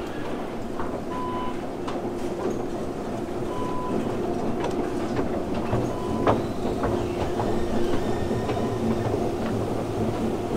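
Long metro-station escalator running downward: a steady mechanical hum with the rattle of its moving steps, a few short high beeps of the same pitch in the first few seconds, and scattered clicks of footsteps.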